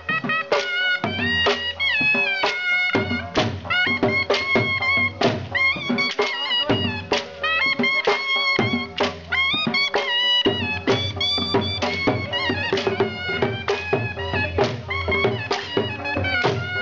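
A shawm-type reed pipe with a brass bell plays a fast, ornamented folk melody over driving dhol drumming, accompanying a Brahui chaap dance. The drum strokes come thick and regular throughout.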